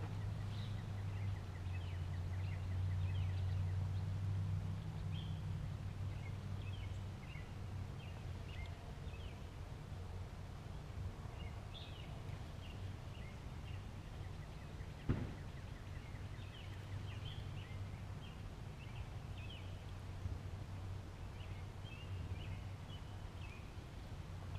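Small birds chirping now and then in the riverside trees over a steady low hum, with one sharp click about fifteen seconds in.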